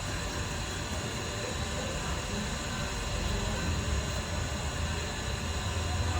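Steady din of a busy street: a low rumble under an even hiss, with no distinct events.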